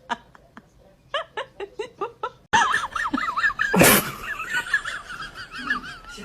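Laughter in about six quick short bursts. A sudden change follows: a high, wavering warble with a loud burst of noise partway through.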